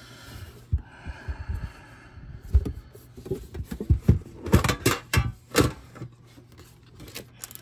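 Metal trading-card tin being handled and opened: a rubbing, scraping sound as hands work at the lid, then a run of sharp knocks and clanks as the lid comes off and is set down.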